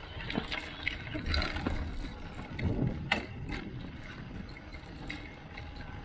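Loose aftermarket front fender on an e-bike banging against the frame in irregular knocks, the loudest about three seconds in, over a steady low rumble of tyres on gravel.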